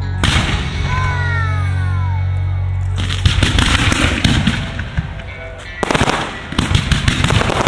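Fireworks display: ground fountains fire with a sudden burst, then dense rapid crackling and popping from the aerial effects begins about three seconds in, eases briefly, and comes back near the end. Music plays underneath.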